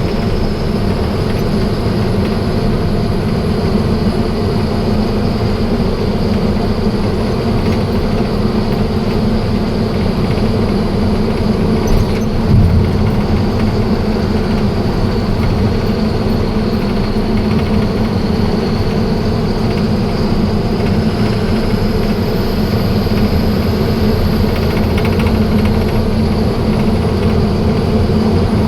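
Heavy truck running at speed on a highway: a steady engine drone with road and tyre rumble, and a brief knock about twelve seconds in.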